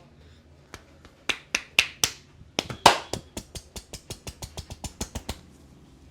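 Sharp slaps and claps of a barber's hands in a percussive massage. A run of strikes starts about a second in, quickens into an even rhythm of about four to five a second, and stops about a second before the end.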